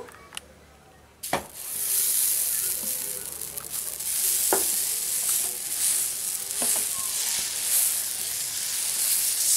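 Dosa batter sizzling on a hot griddle. The hiss starts suddenly about a second in as the batter hits the pan, then holds steady while a steel ladle spreads it in circles, with a few light clicks of the ladle on the pan.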